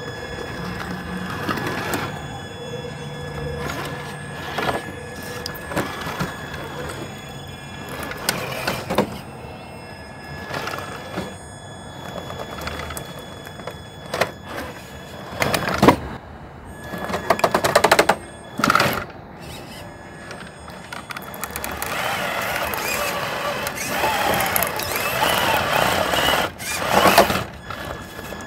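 Traxxas TRX-4 1/10-scale RC rock crawler's electric motor and geared drivetrain whining steadily as it crawls over logs, with scattered knocks and clunks of its tires and chassis against the wood. A run of louder knocks comes a little past the middle.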